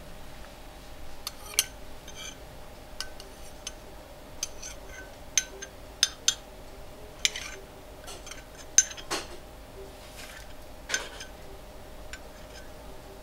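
A metal spoon clinking and scraping against a dish while someone eats curry, about a dozen sharp clinks at irregular intervals.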